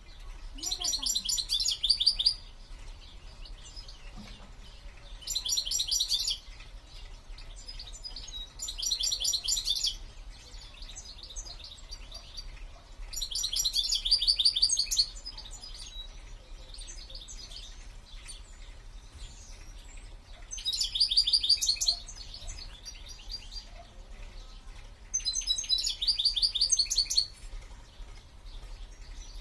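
Caged songbird singing six separate short phrases, each a rapid high trill lasting a second or two, with pauses of a few seconds between them.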